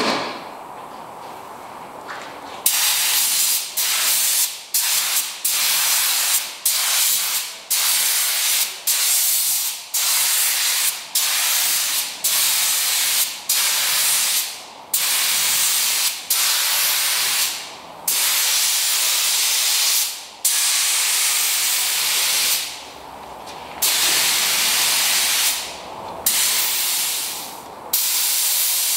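Compressed-air paint spray gun hissing in repeated bursts, each trigger pull lasting about one to two seconds with brief breaks between passes, starting about three seconds in.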